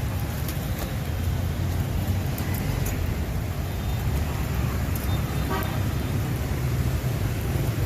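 Steady street traffic running past, a low rumble of engines, with a short vehicle horn toot about five and a half seconds in.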